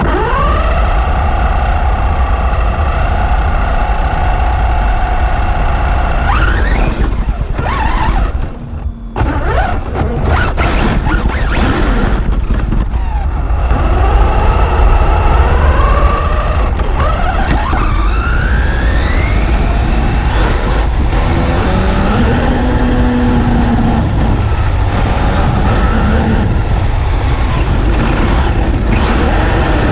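Kyosho Inferno MP9e 1/8-scale electric RC buggy driving on asphalt, heard from a camera mounted on its body. The motor whine rises sharply in pitch as it accelerates, several times over, and drops away briefly near the middle. Under it runs a constant heavy rumble of tyres and wind.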